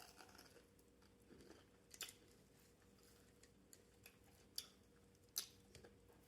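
Quiet close-up eating sounds: chewing, with four sharp mouth clicks, the loudest about five seconds in.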